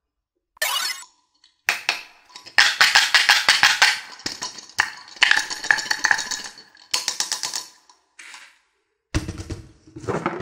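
Small plastic toys handled in the hands: a quick swish, then rapid runs of sharp plastic clicks and rattles that stop and start. Music starts near the end.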